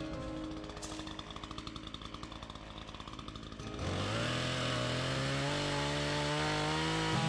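A power tool running with a fast, even pulse, then background music comes in about four seconds in and carries on.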